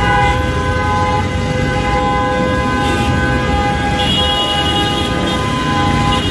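Vehicle horns in dense city traffic: one horn held almost without a break, with a second, higher horn joining about four seconds in, over the steady rumble of engines.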